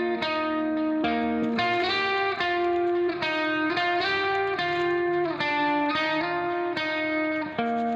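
Background instrumental music led by guitar, a melody of held notes changing about every half second.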